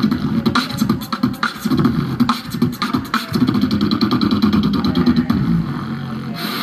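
A man beatboxing into a microphone through the stage PA: sharp mouth-made drum hits and clicks over a continuous humming bass line.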